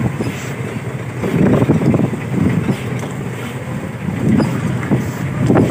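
Dump truck rolling slowly over a rough dirt haul road: a low, uneven rumble with wind buffeting the microphone.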